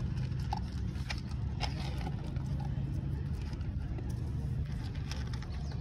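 A steady low rumble, with scattered short crunching clicks of dogs eating dry kibble from plastic bowls.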